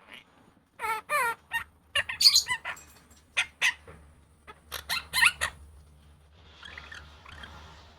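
Monk parakeet (Quaker parrot) vocalizing in quick groups of short, loud, wavering squawks and chatter, about a dozen calls in four or five seconds. Near the end only fainter rustly sound is left.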